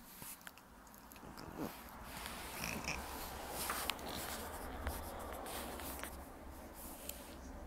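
Two puppies gnawing a rawhide chew: scattered clicks of teeth on hide and wet chewing, with a brief high squeak about two and a half seconds in.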